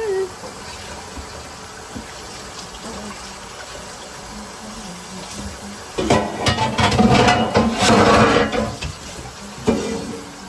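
Kitchen tap running water, with a louder splashing rush and a few knocks of a pot for about three seconds from around six seconds in.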